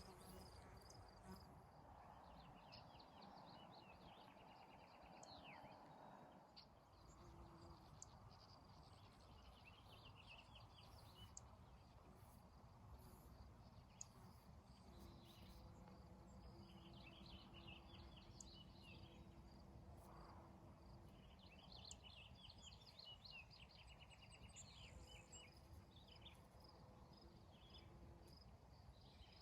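Faint outdoor ambience: a songbird singing short phrases of rapid high notes every several seconds, over a steady thin high insect drone.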